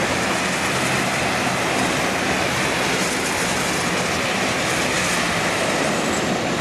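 Cessna 550B Citation Bravo's twin Pratt & Whitney Canada PW530A turbofans at takeoff thrust during the takeoff roll, heard from far off as a steady rushing roar.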